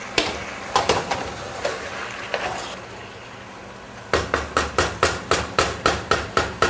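A metal kitchen utensil knocking against a cooking pot: a few scattered knocks, then, about four seconds in, a quick, even run of knocks at about four a second.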